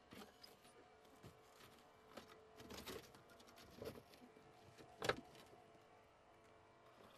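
Hydraulic rescue tool cutting and spreading a car's roof pillar, over a faint steady hum from the hydraulic power unit. Several sharp cracks and creaks of sheet metal tearing come through, the loudest about five seconds in.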